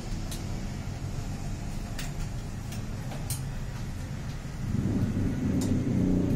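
Sharp clicks and taps as parts inside an opened Xerox WorkCentre photocopier are handled, over a steady low hum. A low rumble builds and grows louder from about two-thirds of the way through.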